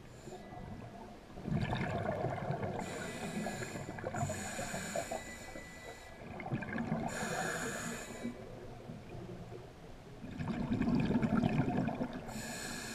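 A scuba diver breathing through a regulator underwater: a few slow breaths, each a hiss of inhaled air and a burst of exhaled bubbles.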